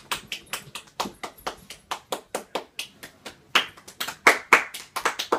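One person clapping, a quick irregular run of sharp claps at a few a second, a little louder around two-thirds of the way in.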